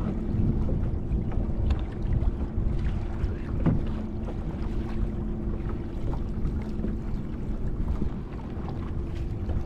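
Wind buffeting the microphone and water sloshing against a kayak hull, with a faint steady hum underneath and scattered small clicks.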